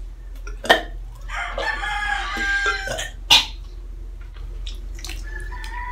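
A rooster crows once, a drawn-out call of about a second and a half, with two sharp knocks just before and just after it.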